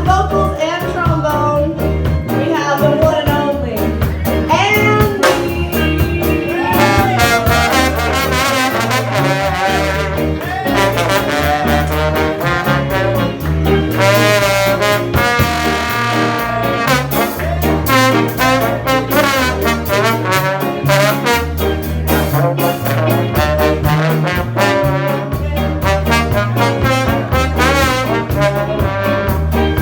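Live band music: horns playing melodic lines over a stepping bass line and drums, in a jazz or swing style.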